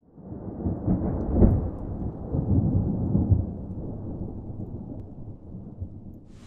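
Rolling thunder rumbling, loudest about a second and a half in, with more rolls around three seconds in, then dying away.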